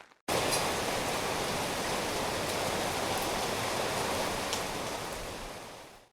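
Paper worked to imitate steady rainy-season rain: an even rushing hiss that starts abruptly just after the beginning, holds steady, then fades away near the end.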